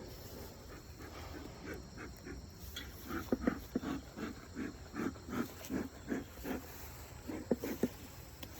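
Dog panting, a quick run of short breaths at about three to four a second, loudest from about three seconds in until near the end, with a few light clicks among them.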